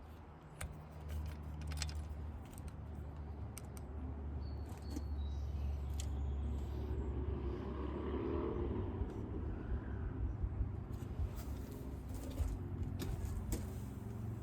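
Low rumble of a passing motor vehicle that swells towards the middle and stays, with scattered sharp metallic clicks and clinks of tools and parts being handled.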